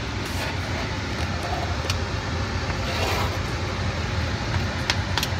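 A steady low hum with a few sharp knife taps on a plastic cutting board. About three seconds in comes a scrape as chopped cilantro is pushed off the board into the pot.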